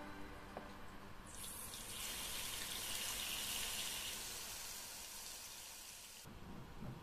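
Water spraying from a handheld spray nozzle into a ceramic garden pot: a steady hiss that starts about a second in and cuts off suddenly near the end.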